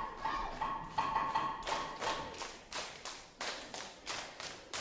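A group of children clapping and slapping in time, about three strokes a second, during a seated Pacific Island group dance. Their voices chant along for the first second and a half or so, and then only the claps and slaps go on.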